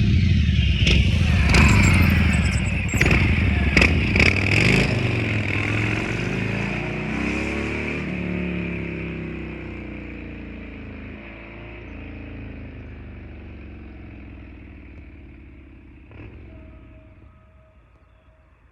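Harley-Davidson Sport Glide's V-twin running loud through a Thorcat Mad Max X-Torque exhaust. It is revved with sharp cracks over the first few seconds, then its pitch rises and falls while it fades away steadily.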